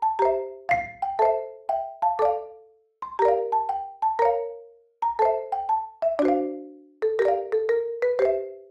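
Background music: a tune played on mallet percussion of the marimba or xylophone kind. Struck notes, often several together, each ring briefly and fade, and the phrase ends on a final note near the end.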